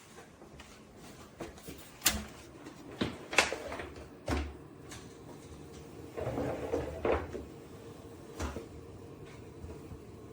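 Sharp knocks and clicks, about seven of them, spread irregularly, from a full-tower PC case being handled. A brief rustling scrape comes about six seconds in.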